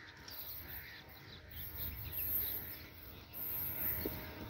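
Birds chirping over a faint, steady low rumble from an approaching diesel locomotive hauling a long train.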